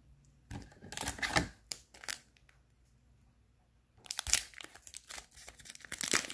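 Foil booster pack wrapper crinkling as it is handled and opened, in two spells of crackling with a quiet gap of about two seconds between them.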